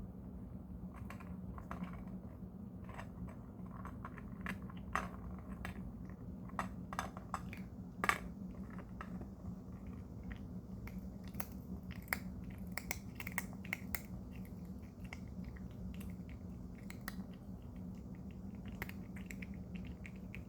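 A cat chewing hard dental-treat snacks, a run of irregular sharp crunches, the loudest about eight seconds in.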